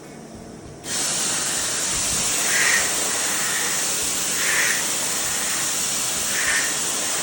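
CNC machine switching on: a loud, steady rushing hiss starts abruptly about a second in, with a faint pulsing note recurring about every two seconds.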